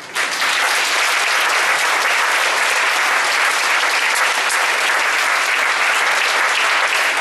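Audience of schoolchildren applauding, the clapping starting suddenly and holding steady.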